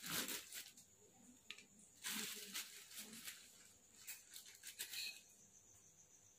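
Faint, scattered rustling and scraping from jaggery being handled in a wok, with a few short noisy bursts, the clearest about two seconds in.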